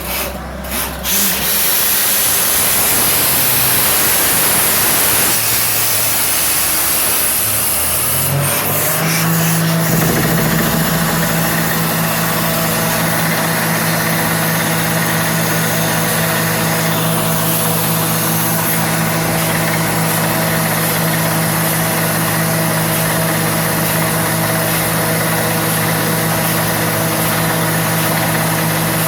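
Water-well drilling rig running loudly, with a strong hiss for the first several seconds. About eight to ten seconds in, its engine pitch rises and then holds steady.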